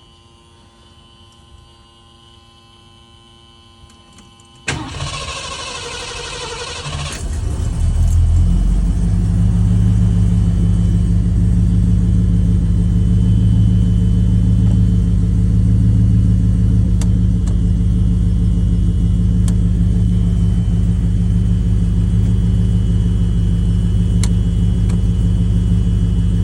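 1972 Ford LTD's engine being started: after a few quiet seconds the starter cranks for about two and a half seconds, then the engine catches and settles into a steady idle.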